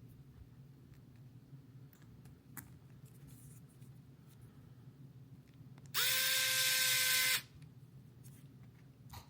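Small electric drill driving a tiny hex screw into a micro RC crawler's beadlock wheel. It runs once for about a second and a half, six seconds in, as a steady whine that rises briefly as it spins up. A few faint handling clicks come before it and one near the end.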